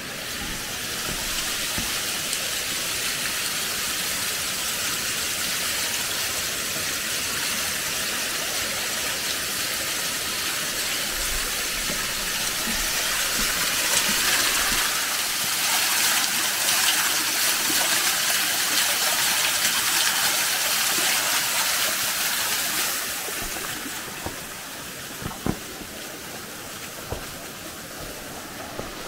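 Small mountain waterfall and stream rushing steadily, louder in the middle and dropping away near the end. A few sharp knocks near the end.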